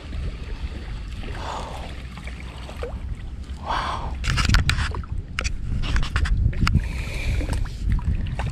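A small hooked fish splashing at the water's surface as it is reeled in on an ultralight spinning rod, with a run of sharp splashes and clicks from about four seconds in. A low steady rumble runs underneath.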